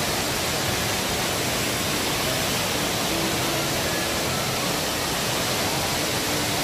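Steady, even rush of the Rain Vortex, Jewel Changi Airport's indoor waterfall, a column of water falling from the roof opening into its basin below.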